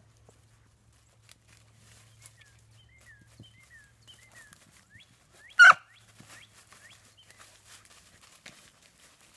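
A beagle gives one short, loud bark about halfway through, over repeated small bird chirps and the rustle of the dog moving through dry leaves.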